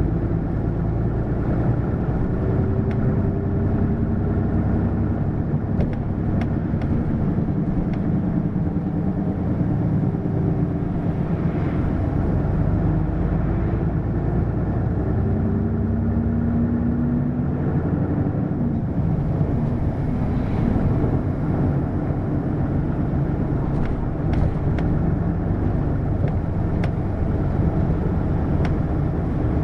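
Hino LKG-KV234N3 city bus running under way: a steady engine and road drone, with the engine pitch rising several times as the bus pulls away and gathers speed.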